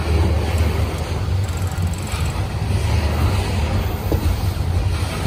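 Loaded freight train of coal hopper cars rolling past on the rails: a steady low rumble with a faint rattle over it.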